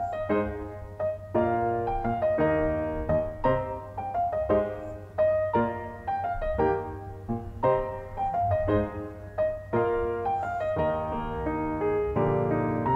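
Background piano music: a melody of struck notes and chords, each note starting sharply and fading.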